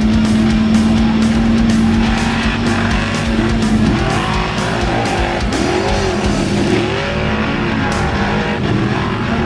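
Formula offroad buggy's engine running hard at high revs as it climbs a steep dirt slope. The note holds steady at first, then rises and falls in pitch from about four seconds in.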